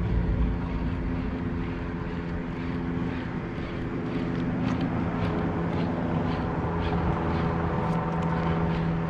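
Steady mechanical hum of an unseen engine running, several even held tones over a light wash of noise, with faint light ticks through the middle.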